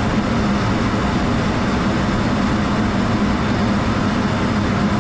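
Steady jet noise inside a fighter aircraft's cockpit: an even rushing of engine and airflow with a low hum underneath.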